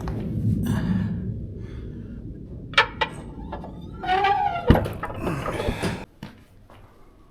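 Clicks and a heavy thunk of hand work with tools and parts, over a low rumble that drops away about six seconds in.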